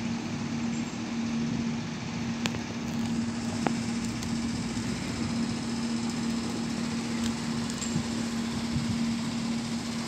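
Boat engine running steadily with a constant hum, over the noise of water and wind. Two short clicks about two and a half and three and a half seconds in.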